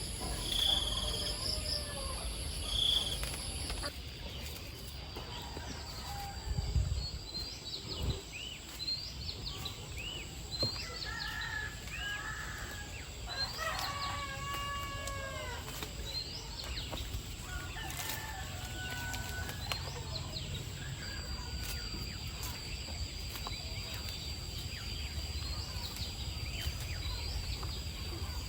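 Backyard chickens clucking and calling, with a rooster crowing about halfway through, over a steady high insect drone. A couple of dull thumps come about a quarter of the way in.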